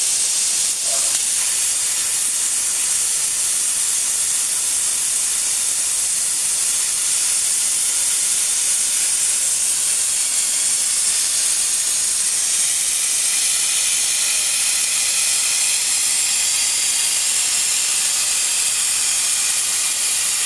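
Air plasma cutting torch on a portable CNC gantry cutter hissing steadily as it cuts through sheet steel.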